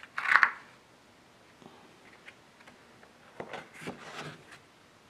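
A sheet of printing paper rustling as it is handled and lifted over a carved woodblock: a loud rustle just after the start, then softer rustles and a few light clicks a little past the middle.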